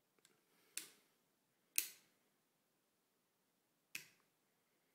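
Sharp metallic clicks from a stripped ZB30J trigger group as its safety selector lever is turned back and forth: a few faint ticks, then four crisp clicks spaced about one to two seconds apart, the second the loudest.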